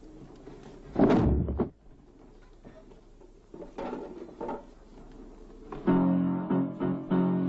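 A loud thump about a second in, as a person collapses among plastic chairs, followed by a few lighter knocks. About six seconds in, music starts with repeated plucked-string notes.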